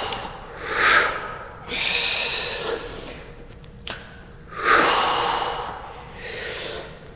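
Heavy breathing from exertion during push-ups: about four loud, airy breaths, each lasting about a second.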